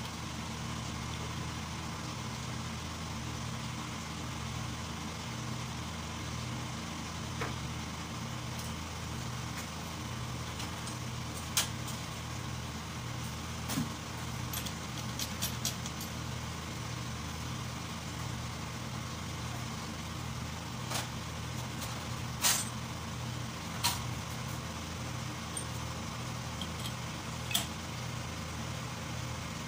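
Steady low machine hum with a slow, even pulse throughout, and a few sharp metal clicks and taps from hand tools working on a small engine being assembled.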